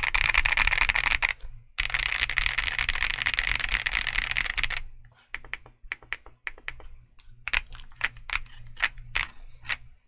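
Weikav Sugar65 mechanical keyboard with CK x Haimu Pastel Thistle switches and YQ DS ABS Apollo keycaps being typed on fast, in a dense clatter of keystrokes with a short break about a second and a half in. From about five seconds in, single key presses follow at a slow, uneven pace.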